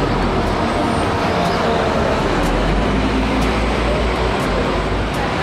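Red double-decker bus driving along a street in traffic: steady engine and road noise with a low rumble.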